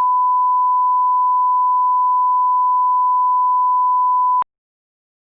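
A single steady, pure electronic tone, like a line-up test tone, held unchanged and loud for about four and a half seconds, then cut off suddenly.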